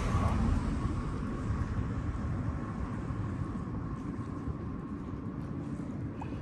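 Steady low outdoor rumble with no clear single source, with a faint thin high tone over the first couple of seconds.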